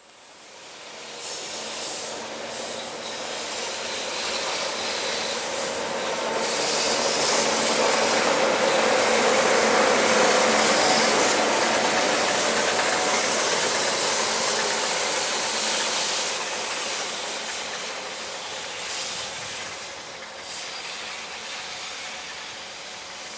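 A JNR EF63 electric locomotive running past on the rails, close by. Its rail and running noise, with a faint steady hum underneath, grows louder to a peak about ten seconds in and then fades as it moves away.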